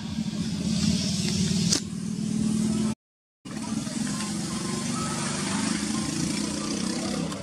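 A steady, low engine-like drone of a motor running nearby, cut off completely for about half a second around three seconds in before it resumes.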